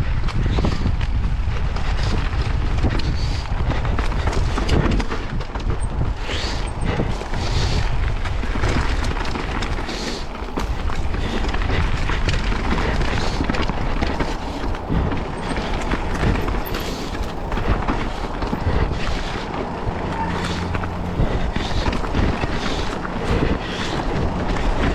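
Mountain bike rolling down a rough dirt trail: a steady rumble of wind on the microphone and tyres on the ground, with many short knocks and rattles as the bike goes over bumps.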